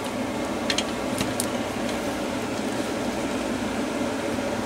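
Steady ventilation hum, even and unchanging, with a few light clicks about a second in as a charger cord and its plug are handled.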